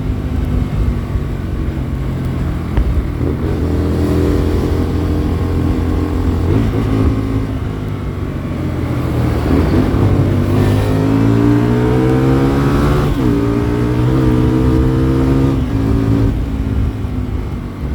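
Hyosung Comet GT250's V-twin engine pulling under way, its pitch climbing and then dropping back at gear changes in the second half, with wind noise on the microphone.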